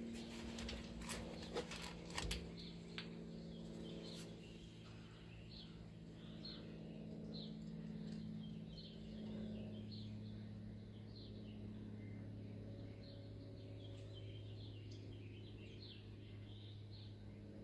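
Small birds chirping repeatedly over a steady low hum, with a few sharp clicks in the first few seconds.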